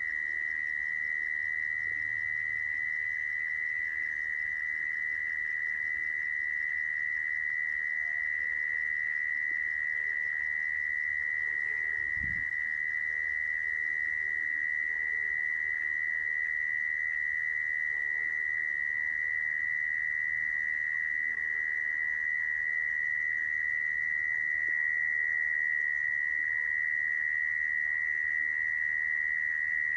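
Mole cricket singing: a steady, unbroken high-pitched trill that holds one pitch, the call used to lure mole crickets into traps.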